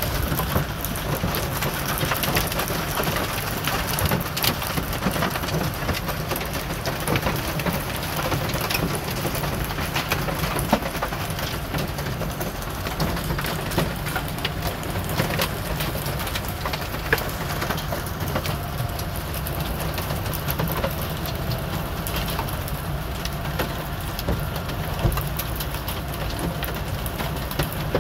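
Heavy rain pattering on the roof and windshield of a truck cab, heard from inside: a steady wash dense with sharp individual drop impacts. A low steady rumble runs underneath.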